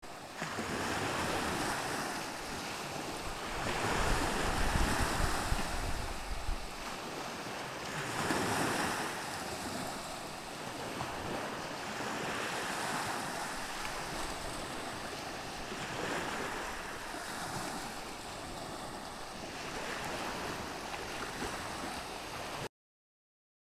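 Lake Michigan waves washing in, the wash swelling about every four seconds, with wind buffeting the microphone about four to six seconds in. The sound cuts off abruptly near the end.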